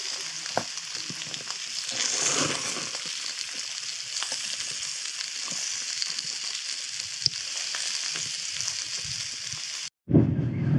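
Food frying in a pan: a steady sizzle with scattered small crackles and pops. Near the end it cuts off abruptly and a louder low rumble takes over.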